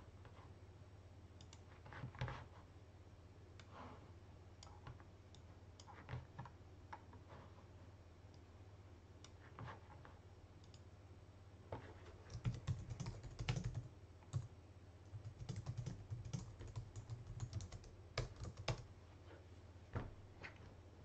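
Faint typing on a computer keyboard: scattered single keystrokes, then two runs of rapid typing in the second half, over a steady low hum.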